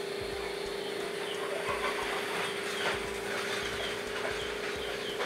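Coil-over rear shock absorbers being shifted and settled in a foam-lined cardboard box, with light rustles and taps, over a steady hum. Faint short high chirps come several times.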